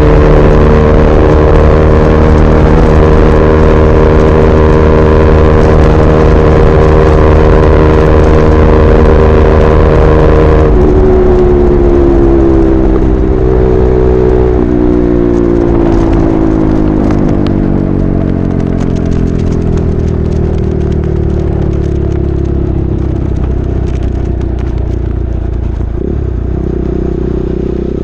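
KTM RC 390's single-cylinder engine through an SC Project replica slip-on exhaust, held at steady high revs. About ten seconds in the throttle is shut and the engine note falls slowly as the bike slows.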